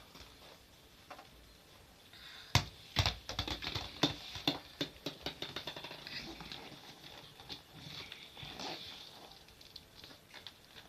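Knocks and taps of play in a small room: one sharp knock about two and a half seconds in, then a quick run of clicking taps, with scattered softer taps after.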